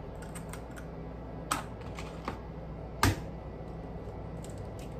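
Eggs being cracked by hand over a small ceramic dish: a few sharp taps and clicks of shell, the two loudest about one and a half and three seconds in.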